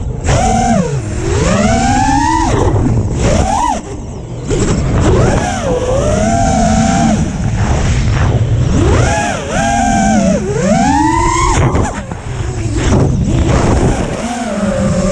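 A 5-inch FPV racing quad's BrotherHobby 2206 brushless motors spinning Gemfan Flash 5-inch props, whining, the pitch swooping up and down sharply and repeatedly with each throttle punch and chop. It is heard from the onboard action camera, over a steady low rumble.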